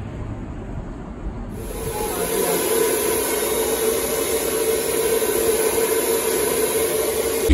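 Handheld electric hair dryer running steadily: a rush of blown air with a steady motor hum. It comes in about a second and a half in, after a quieter stretch.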